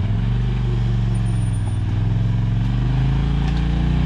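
Side-by-side UTV engine running under load at low speed, its revs rising and falling as it crawls over rough trail obstacles.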